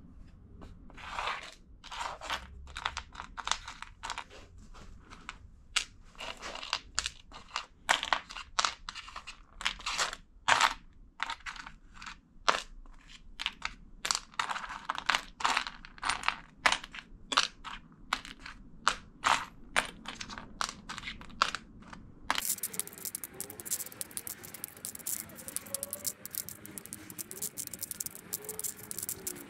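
Hand tools working wood in quick, uneven scraping and cutting strokes, several a second. About three-quarters of the way through, the sound changes abruptly to a denser, hissing scrape with many fine clicks.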